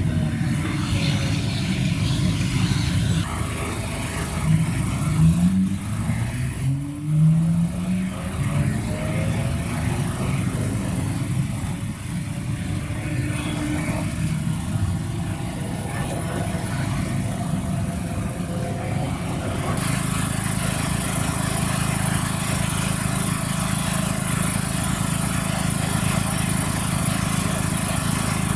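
Electric commuter train moving through a station, its traction motors whining with tones that rise in pitch a few seconds in as the train gathers speed. From about two-thirds of the way through, a steady hiss takes over.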